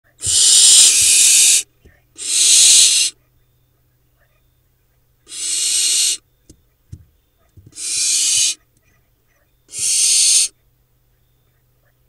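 Barn owl nestlings giving hissing, screechy calls: five separate calls of about a second or a little more each, spaced two to three seconds apart.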